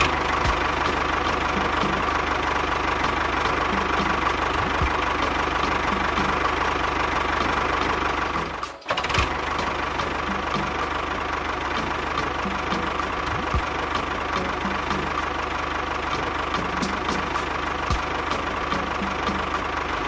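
A small motor running steadily with a thin, steady whine, broken off briefly about nine seconds in.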